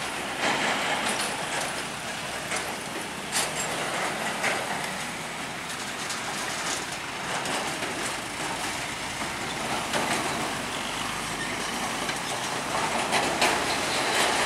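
Heavy trucks crossing a railway level crossing at low speed: diesel engines running and tyres rolling over the rails, with several sharp knocks as the wheels go over the tracks.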